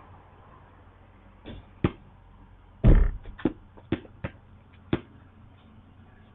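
A basketball bouncing, heard as about eight separate sharp knocks at uneven spacing, the loudest a deep thump about three seconds in.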